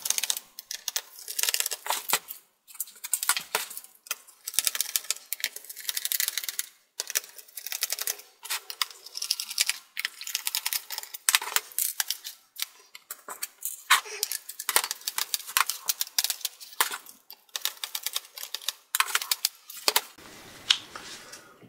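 Small precision screwdriver backing screws out of the plastic underside of a Lenovo ThinkPad X230: a run of small rapid clicks and scrapes of the bit turning in the screw heads, in clusters with short pauses between screws.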